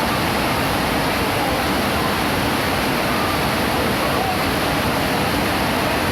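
Heavy rain falling steadily in a constant downpour.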